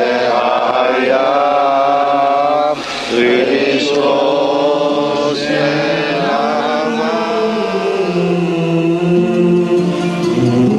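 A group of voices singing a patriotic song unaccompanied, in slow, long-held notes, with a brief break about three seconds in.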